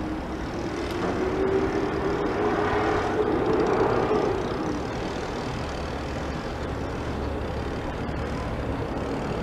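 A passing engine over a steady low city rumble: its tone rises slowly and grows louder over the first four seconds, then fades away.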